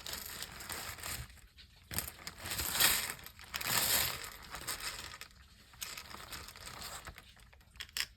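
Plastic crinkling and rustling as a pile of small slime charms is rummaged through by hand, loudest about three to four seconds in.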